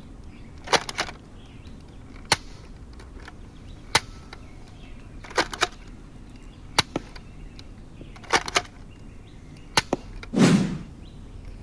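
Toy soft-bullet blaster firing foam darts at targets over and over: sharp snaps every second or two, several in quick pairs. Near the end there is one louder, longer thump.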